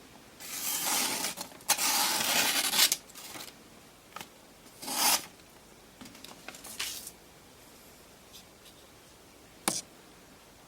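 Knife on a Wicked Edge sharpener being worked by hand: a few rubbing, scraping strokes in the first three seconds and another about halfway, then light handling and a single sharp click near the end.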